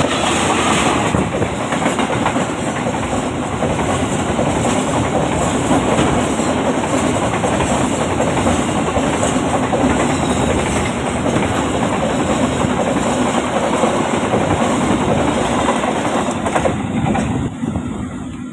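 Diesel-hauled container freight train passing close by at speed: the locomotive goes by in the first second, then a steady loud rush of the flat wagons' wheels on the rails, which eases off near the end as the train moves away.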